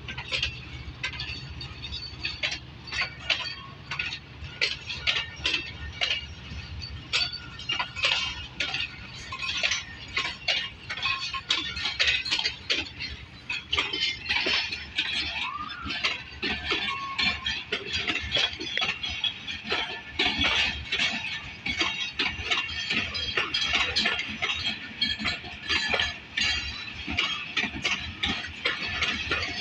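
Passenger train coaches rolling past, their steel wheels making a steady run of irregular metallic clicks and clinks over the rail joints and points. A low rumble is strongest at the start and fades within the first few seconds.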